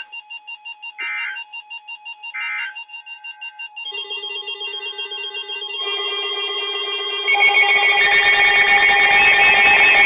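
Two short bursts of EAS end-of-message data tones, screeching and digital, in the first three seconds. They follow a severe thunderstorm warning on NOAA Weather Radio. Under them a repeating, ringtone-like electronic music pattern builds up and gets louder, adding layers about 4, 6 and 7.5 seconds in.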